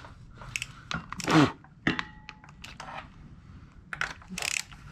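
Hand tools clicking and clinking against the engine's exhaust manifold studs and bolts. About a second in there is a brief loud scrape that falls in pitch, and about two seconds in a short metallic ring.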